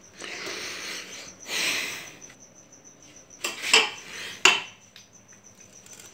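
Handling noise as the phone is moved and touched: rustling for the first two seconds, then a few sharp knocks and clicks about three and a half to four and a half seconds in.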